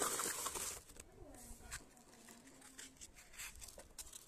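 Rustling in the first second, then scattered light taps and scrapes as a small cardboard box is handled on a concrete ledge.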